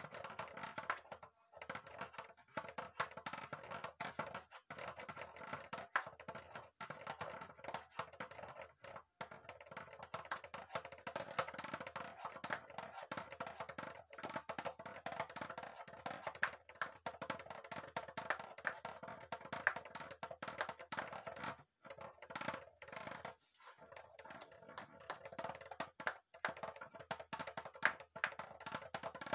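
Homemade percussion instrument, a hollow pink plastic body, played with a wooden stick in a fast, continuous run of taps with a hollow plastic ring, broken by a few short pauses.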